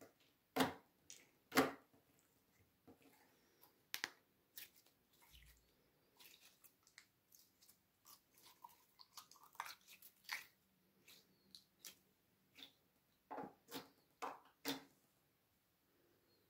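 Slime being kneaded and stretched by hand: irregular sticky squishes and small pops, loudest near the start and in a cluster near the end.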